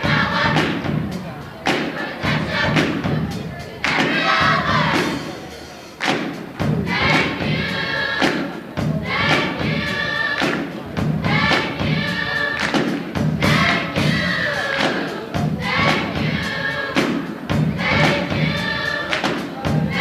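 A group of voices singing together over loud, rhythmic thumps several times a second.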